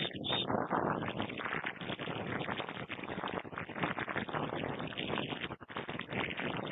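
Shortwave receiver static on the 40-metre amateur band, heard through a software-defined radio in sideband mode: a steady rushing hiss with a choppy, crackly texture, cut off above about 4 kHz by the receiver's filter. The band noise is high, about S7.5 by the listening operator's S-meter, and no readable signal comes through it.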